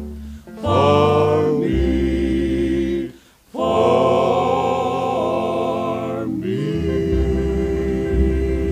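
Gospel vocal group singing in close harmony on long held notes, breaking off briefly about three seconds in.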